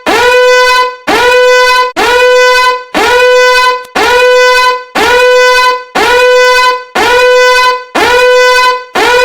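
Sped-up emergency alarm sound effect: a horn-like alarm tone repeating about once a second, each blast sliding up briefly and then holding steady.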